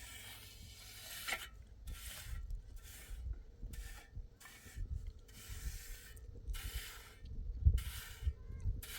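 A hand tool scraping in regular strokes, about one a second. Each stroke is a short rasp with a dull thud underneath.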